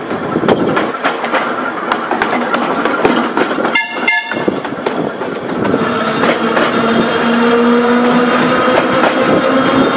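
Seaton Tramway electric tram running on its rails, wheels clattering and clicking over the track and pointwork. About four seconds in there are two short high toots, and from about six seconds a steady whine sets in as the tram runs along the platform.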